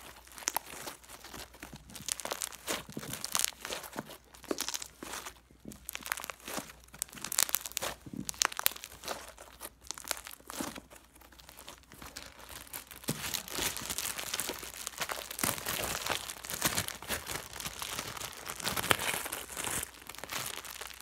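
Red slime kneaded and squeezed by hand, giving a dense, irregular run of small clicks and crackles.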